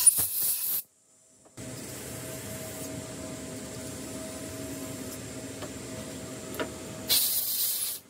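Compressed-air blow gun hissing as it blasts chips off a machined aluminium part, cutting off abruptly under a second in. After a short gap a steady machine hum runs, and a second burst of air hiss comes near the end.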